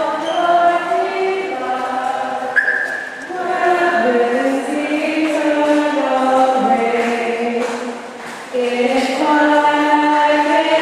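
A group of voices singing together in held notes that move from pitch to pitch, with short breaks between phrases about three and eight seconds in.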